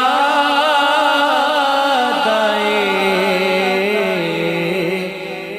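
Background song: a singer holding long, wavering notes of an Urdu devotional song, dropping to a lower note about two seconds in.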